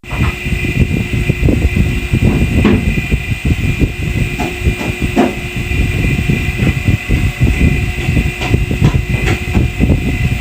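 Refrigerator's reciprocating compressor running: a low, uneven rumble with a steady high-pitched whine above it.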